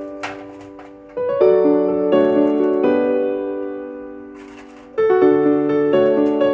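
Background piano music: sustained chords struck every second or so, each left to ring and fade, with a brief rustling noise twice.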